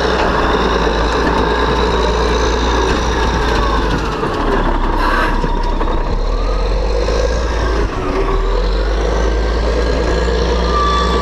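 Caterpillar 621 wheel tractor scraper's diesel engine running loud and steady as the scraper passes close by, laying fill from its loaded bowl. A high whine rises and falls over the engine drone.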